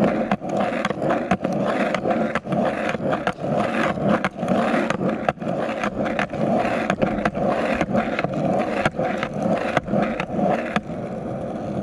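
Skateboard wheels rolling on rough asphalt while the rider tic-tacs (zigzags without pushing), with quick repeated clacks, about two or three a second, as the board swings left and right. Near the end the clacks stop and the board rolls on smoothly.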